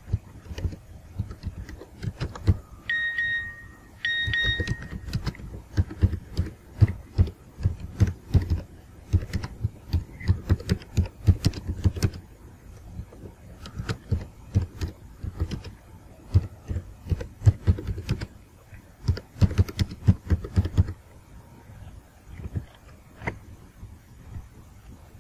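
Computer keyboard typing: irregular runs of keystrokes, each with a deep thud, with short pauses, stopping a few seconds before the end. Two short high beeps about three and four seconds in.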